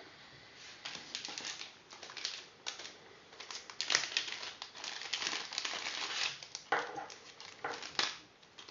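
Irregular clicks, scrapes and rustling of small parts being handled.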